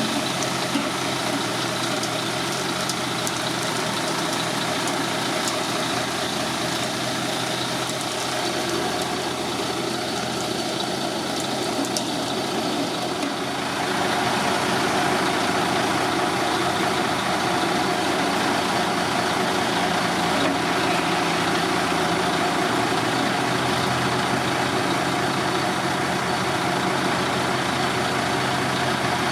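Diesel engine of a Mercedes-Benz Actros concrete mixer truck running steadily, stepping up louder about halfway through.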